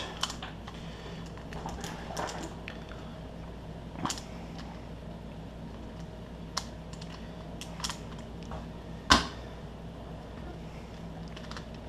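Plastic Rubik's cube being scrambled: scattered clicks and clacks of its layers turning, with a louder knock about nine seconds in.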